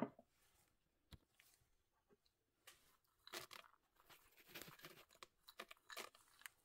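Chopped walnuts being tipped from a small bowl onto cake batter, giving a run of soft crunchy rustles over about three seconds. A single sharp knock right at the start is the loudest sound, and a small click comes about a second in.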